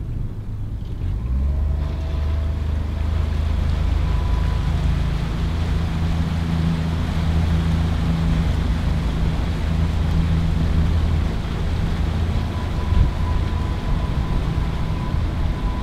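Mercury 40 hp four-stroke EFI outboard on a pontoon boat picking up over the first two seconds, then running steadily with the boat under way, with wind and water noise over it.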